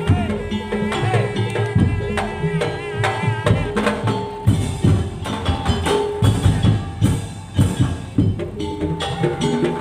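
Madurese tong-tong (daul) percussion ensemble playing: wooden slit drums and drums beating a busy, continuous rhythm. A wavering melody line rides over it in the first few seconds.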